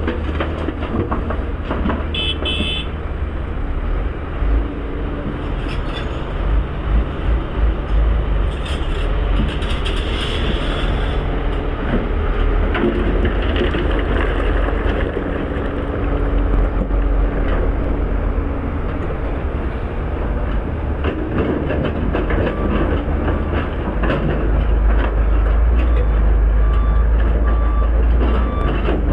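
Heavy diesel earthmoving machinery working, engines running with a steady low rumble and scattered knocks and rattles. About two-thirds of the way in, a short beep starts repeating at an even pace, like a reversing alarm.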